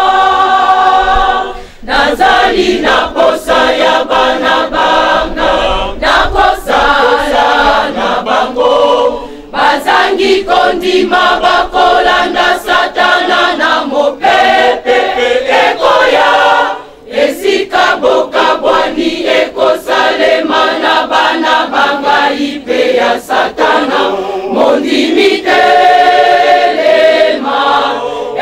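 Large church choir singing in parts, in long phrases with brief pauses between them.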